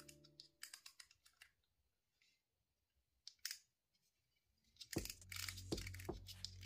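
Faint scattered plastic clicks and taps as a guide comb is fitted onto and taken off a Xiaomi Mi Beard Trimmer head, with the trimmer switched off. About five seconds in, background music with a steady beat comes back.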